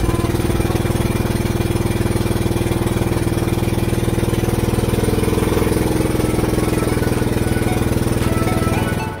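Engine of a motorized outrigger boat (bangka) running steadily under way: a loud, even drone with a fast regular firing pulse. It drops away abruptly near the end.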